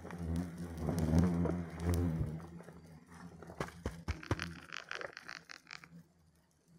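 Hornets buzzing close around a stiff plastic tarpaulin protective suit. The suit crinkles and rustles as the wearer moves, with a few sharp clicks about four seconds in and then a stretch of crackly rustling.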